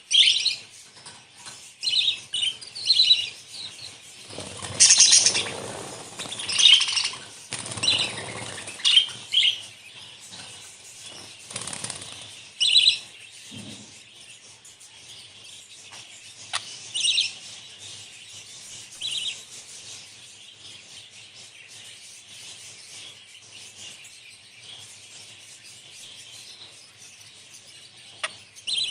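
Budgerigars chirping and chattering in short bursts, busy at first and sparser later, with a few seconds of louder rustling noise about four seconds in.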